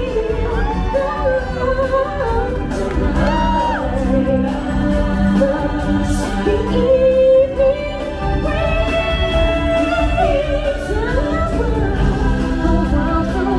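Live stage-show music: a singer's amplified voice holding long, gliding notes over a steady musical backing.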